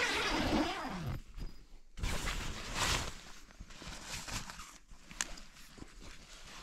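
A man's drawn-out waking groan at the start, then crinkling nylon tent fabric and the tent door's zipper being pulled open, with rustling as the flap is pushed aside.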